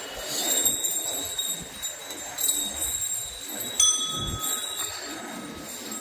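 Bells on a walking temple elephant jingling and ringing, with one sharper clang a little under four seconds in.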